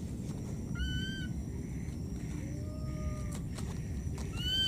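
Lost baby macaque giving short, high-pitched arched calls for its mother: one about a second in and a louder one near the end, with a fainter, lower call in between.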